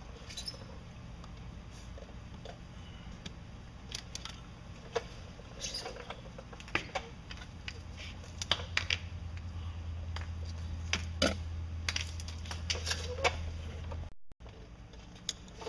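Scattered light clicks and taps of metal parts and wires being handled in a sterndrive gimbal housing, as the old trim sender wires are pulled out. A low steady hum joins about halfway through.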